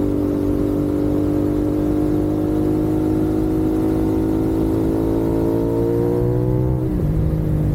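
CFMoto 450SS parallel-twin engine pulling under acceleration, its pitch rising steadily for about seven seconds, then dropping suddenly near the end at an upshift before holding steady. Wind rushes over the helmet-mounted microphone throughout.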